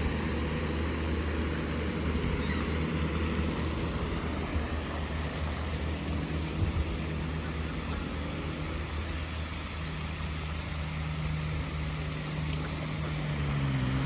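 A steady low engine drone over a broad hiss, growing stronger in the last few seconds, where its pitch glides as it passes by.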